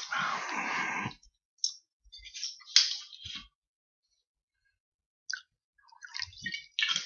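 Handling noises: a rustle for about the first second, then scattered small clicks and knocks, one sharper click about three seconds in, and more clicking and rustling near the end.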